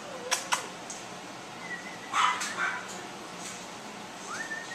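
Young poodle puppy whimpering and yipping. There are a few thin, high whines, one rising in pitch near the end, and a louder short yip about two seconds in.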